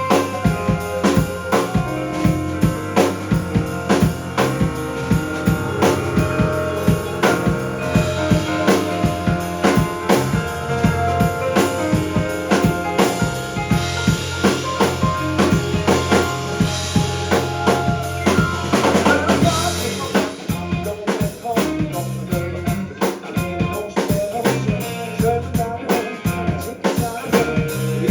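A live indie rock band playing an instrumental passage, the drum kit keeping a steady beat over bass and guitars. About nineteen seconds in, a swell builds and breaks, and the band drops into a sparser part.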